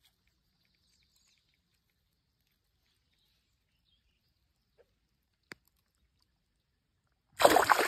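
Near silence with one faint click about five and a half seconds in. Near the end comes a sudden loud splash as a largemouth bass, held by the lip in the water, kicks free and darts off.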